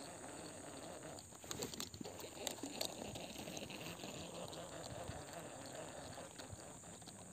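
Handling noise from a baitcasting fishing rod and reel: a cluster of sharp clicks and rattles between about one and a half and three seconds in, over a steady background hiss.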